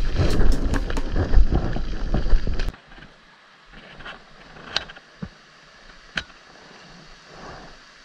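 Footsteps crunching on a gravel road, with wind rumbling on the microphone, for under three seconds. They stop abruptly and give way to the faint steady rush of a stream, with a few small clicks.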